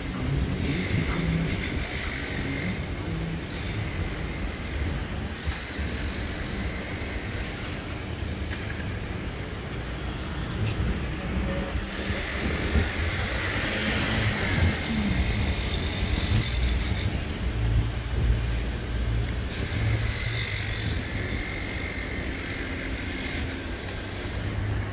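Street traffic noise: a steady low rumble of passing cars.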